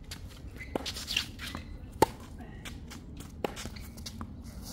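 A ball being struck in play: about five sharp hits with short ringing, spaced roughly a second apart, the loudest about two seconds in.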